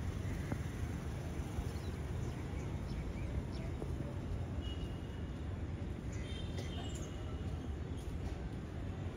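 Steady low outdoor rumble of background noise, with a few faint, high bird chirps about five to seven seconds in.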